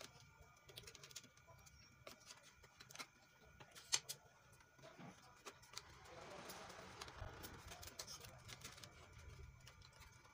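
Faint handling sounds of a sewing machine's plastic LCD display frame: scattered small clicks, with a soft scraping rustle from about six to nine seconds in as the paper backlight sheet is worked out of the display.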